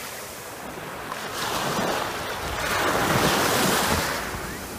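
Small waves washing up on a sandy beach, the wash swelling about halfway through and then receding.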